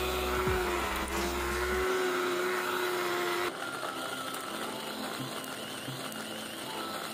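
Small rechargeable portable blender's motor running with pomegranate seeds in the jar: a steady whine that wavers slightly under load. It cuts off about three and a half seconds in, leaving a quieter noise.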